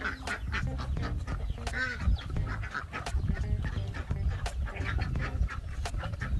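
Ducks quacking, several calls over a few seconds, among irregular clicks.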